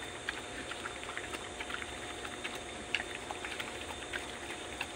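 A young pig eating wet feed from a shallow metal pan, making many small irregular smacking and clicking sounds.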